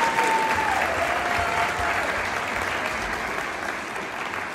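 Theatre audience applauding, the clapping slowly dying down. A thin high held tone, a whistle or cheer from the crowd, rides over it at first, drops in pitch about a second in and fades out before the two-second mark.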